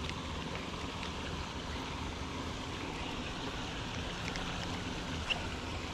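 Steady rush of water from a small creek waterfall running into a shallow pool.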